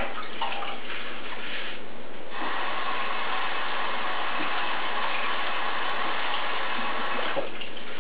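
Kitchen faucet running water over fresh spinach leaves being rinsed at the sink; the steady flow starts about two seconds in and stops shortly before the end, with a few light handling knocks before it.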